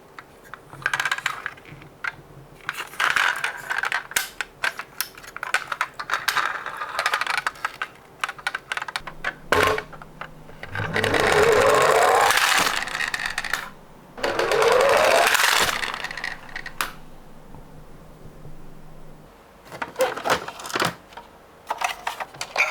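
Small die-cast Tomica police minicars clicking and clinking against each other and a hard surface as they are handled. Midway come two louder stretches of continuous rattling noise, each about two seconds long.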